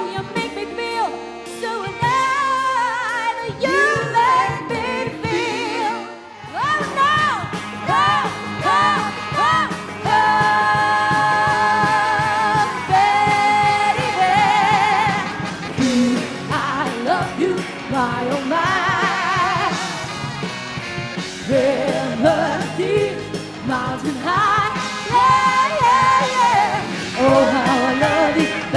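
Live pop music with a female lead vocal and a band, in Motown style. The singing runs over a steady beat, and the full band comes in about six seconds in after a sparser opening.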